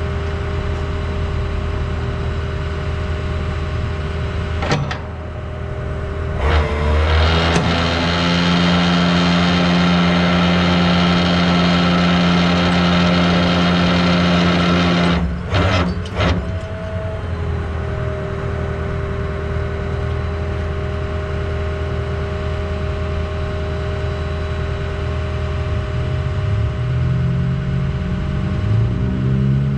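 Rollback tow truck's engine idling, raised to a steady, louder higher speed about six seconds in and held for some eight seconds while the winch is run to pull the cable taut, then dropping back to idle after a few clicks. Near the end the engine starts to rise again.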